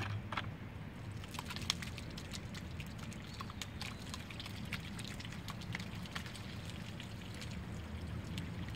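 Wet mash of paper pulp, sawdust and flour sliding and plopping out of a plastic bucket onto a mesh screen, with many small wet clicks and drips over a steady low rumble.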